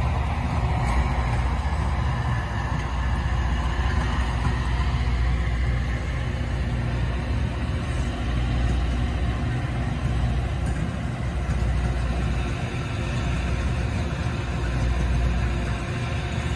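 Steady low rumble of vehicle engines.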